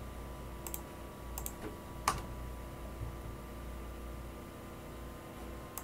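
Computer mouse clicks, a few of them in quick pairs like double-clicks, over a faint steady hum.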